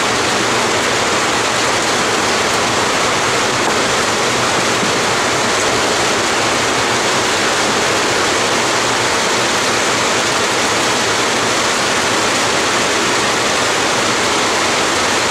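A steady, loud rushing hiss, even in level throughout, that covers up any small tool sounds.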